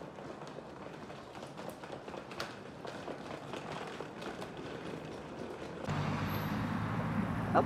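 Soft footsteps over a low background hum. About six seconds in, a louder steady low hum sets in.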